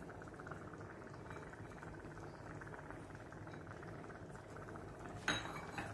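Egg kuruma gravy simmering in an earthenware clay pot: a faint, steady fine crackle of small bubbles. One soft knock about five seconds in.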